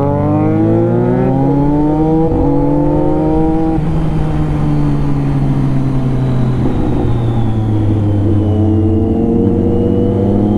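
Sport motorcycle engine accelerating hard. Its pitch climbs, drops at a gear change about four seconds in, holds fairly steady, then climbs again near the end.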